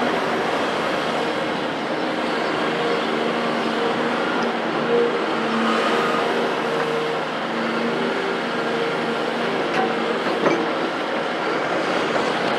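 Distant heavy construction machinery, an excavator's diesel engine among it, running steadily with a constant hum, and a single short knock about ten and a half seconds in.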